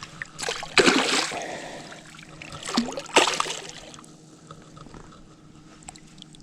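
Water splashing twice, about two seconds apart: a hooked smallmouth bass thrashing at the surface beside the boat as it is brought in.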